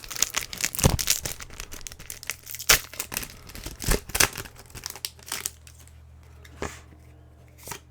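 Foil wrapper of a Pokémon booster pack crinkling and tearing as it is opened by hand: dense crackling for about five seconds, then a couple of single crinkles.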